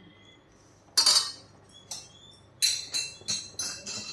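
Metal ladle clinking and scraping against a metal cooking pot while stirring a thick gravy: one sharp clink about a second in, then a quick run of clinks in the last second and a half.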